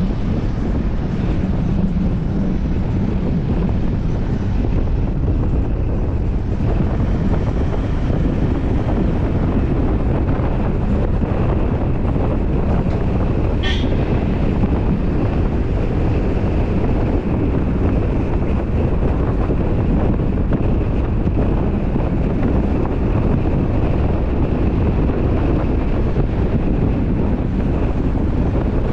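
Wind rushing over a camera mounted outside a moving car, over a steady rumble of road and engine noise. A brief click sounds about halfway through.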